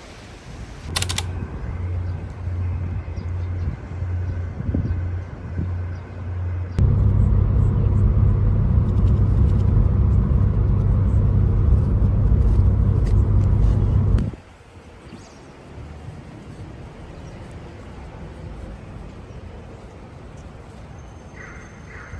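Low vehicle rumble, pulsing at first, then a louder steady rumble for about seven seconds that cuts off suddenly, leaving quieter background noise.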